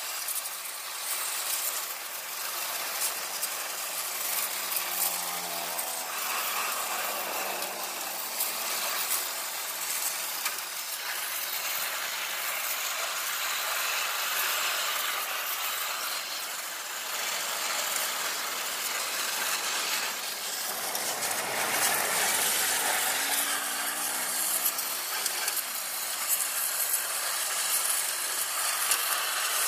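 Wet sandblasting gun, a pressure-washer jet carrying sand, hissing steadily as it blasts an engine crankcase in a steel booth, with a motor running underneath.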